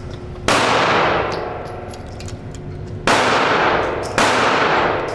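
Three gunshots in an indoor shooting range, half a second in, about three seconds in and again a second later, each followed by a long echoing tail.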